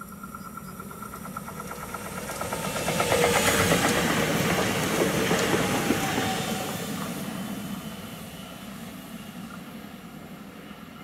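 DB Class 442 (Bombardier Talent 2) electric multiple unit passing close at speed: the rail noise builds to its loudest about three to six seconds in, with a quick, even run of clicks as it nears, then fades away as the train recedes.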